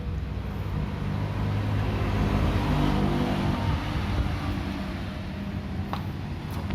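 A motor vehicle's engine passing, growing louder about two to three seconds in and then fading.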